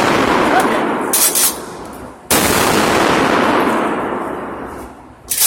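Shotgun blasts: the fading tail of one shot, then a second shot about two seconds in whose echo dies away slowly. Between the shots and again near the end come short sharp clacks.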